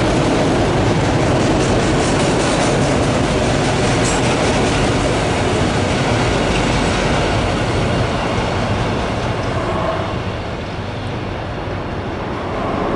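Freight train of autorack cars rolling past at speed, steel wheels running on the rails in a dense, steady noise. The noise drops off about ten seconds in as the last car goes by.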